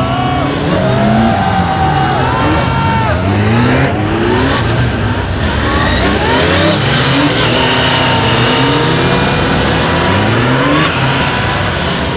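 Honda police motorcycle engine revving up and easing off again and again as it is ridden through a tight cornering course, its pitch rising with each burst of throttle and dropping back.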